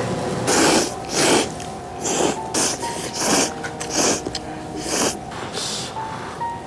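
Instant ramen noodles being slurped: a run of about eight short, loud slurps in quick succession.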